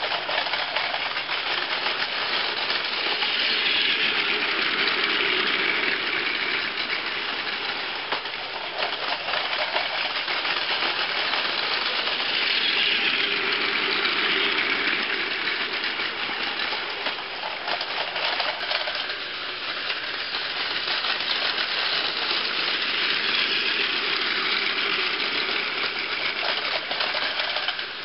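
Plarail E4 series Max Shinkansen toy train, six cars long, running on plastic track: the battery motor whirs and the gears and wheels rattle. The sound swells each time the train passes close, about every nine seconds.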